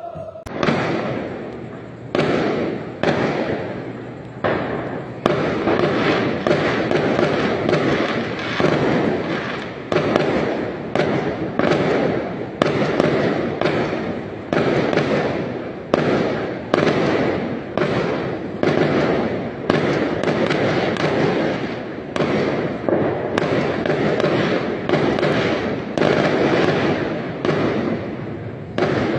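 Aerial fireworks bursting in a continuous barrage: sharp bangs about one to two a second, each trailing off before the next.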